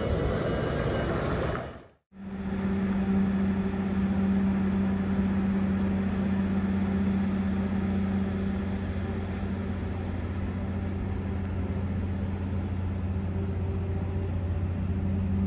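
For about the first two seconds, the broad running noise of a Nikola hydrogen fuel-cell semi tractor moving across a lot. After a sudden break, a steady low electric hum with a deeper drone underneath comes from the standing truck.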